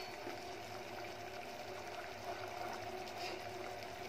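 Saffron sugar syrup boiling in a steel pot on a gas stove, a steady low bubbling. The syrup has boiled down to a fully sticky consistency.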